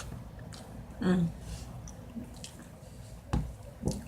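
Wet chewing and mouth sounds of a bite of fruit salad being eaten, with a short voiced sound about a second in and two sharp clicks about three and a half seconds in.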